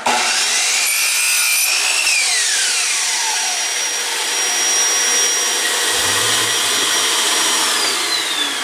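Electric miter saw spinning up and cutting a wooden board, its blade winding down about two seconds in, while a shop vacuum hooked to the saw keeps running with a steady high whine and starts winding down near the end.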